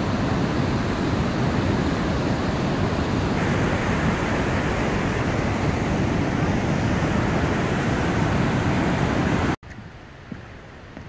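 Rain-swollen mountain creek rushing through a canyon in flood, a steady loud wash of water. It cuts off abruptly near the end, leaving a much quieter forest background.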